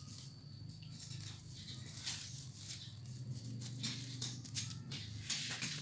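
Woven plastic sack crinkling and rustling in short, uneven bursts as kittens paw at it and scramble over it, over a low steady hum.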